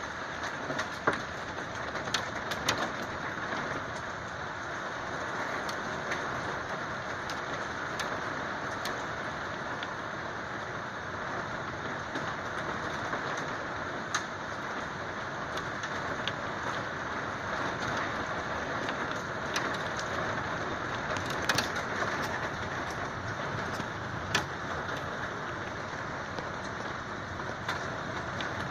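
Rain falling steadily during a thunderstorm, an even hiss, with frequent sharp taps of drops striking a hard surface scattered throughout.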